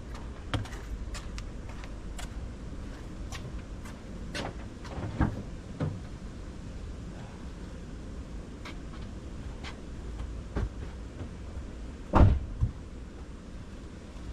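Scattered clicks and knocks from tools and equipment being handled while working under a car, with a louder double knock near the end.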